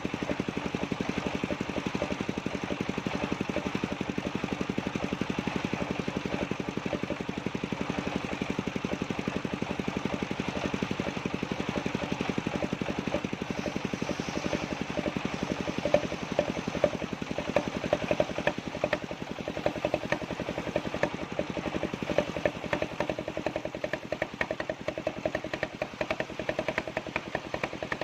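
Engine of a circular-saw sawmill running steadily. About halfway through, irregular knocks and clatter start and keep coming over the engine.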